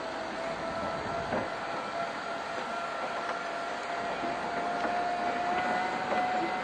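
A Zephir shunting tractor moving an E.636 electric locomotive at walking pace, heard as a steady rolling and running noise. A thin whine in it rises slightly in pitch, and there are a few light clicks.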